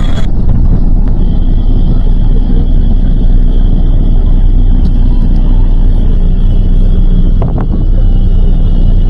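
Engine and road rumble of a moving bus heard from inside its cabin: a loud, steady low rumble with a faint steady high whine over it.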